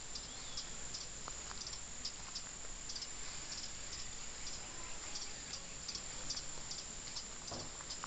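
Short high-pitched animal chirps repeating about twice a second, somewhat irregularly, over a steady high-pitched whine.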